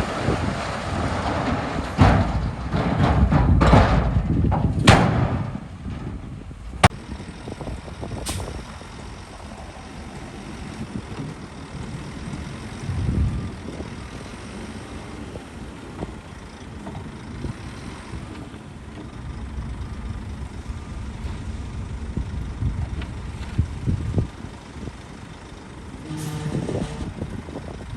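Heavy diesel earthmoving machinery working. There is a loud, rough rush with several sharp metallic knocks over the first few seconds, then a steadier, quieter engine rumble.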